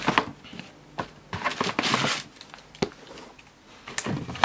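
Cardboard shoebox being opened by hand, its paper wrapping rustling in irregular bursts, loudest about a second and a half in, with a few light knocks and clicks of the cardboard.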